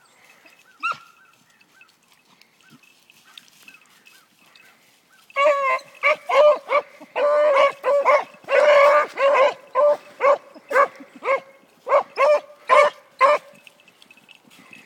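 A beagle baying: a fast run of loud, ringing barks and drawn-out bawls, about two or three a second, starting about five seconds in and stopping about a second before the end. A single short sharp sound comes about a second in.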